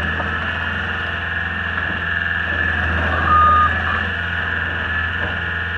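John Deere 323D skid steer's diesel engine running steadily, with one short high-pitched beep a little past halfway.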